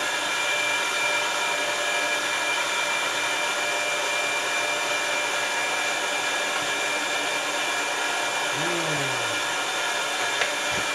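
Electric meat grinder motor running steadily with a thin high whine, as ground sausage meat is pushed through the stuffing tube into the casing.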